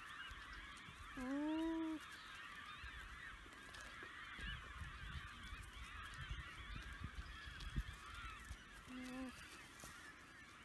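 Two short alpaca hums: a louder one about a second in that rises and then holds steady, and a shorter one near the end. Behind them runs a faint continuous chatter of a large flock of birds calling, with a few low bumps and one sharp knock.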